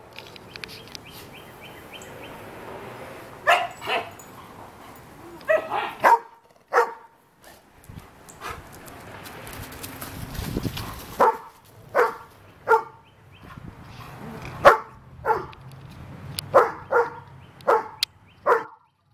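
Short, sharp dog barks as a pit bull–Doberman mix puppy and a beagle play-fight. They are scattered at first, then come about one every half second over the last few seconds.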